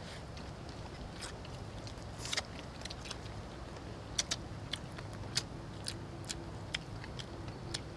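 People chewing chicken wings eaten by hand: scattered short, sharp mouth smacks and clicks, about ten of them, over a faint steady low background noise.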